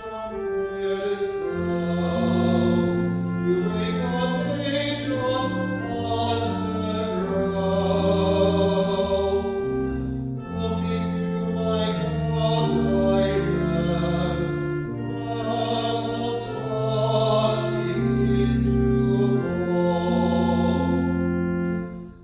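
Choir singing sacred music in slow held chords, with a steady chordal accompaniment underneath.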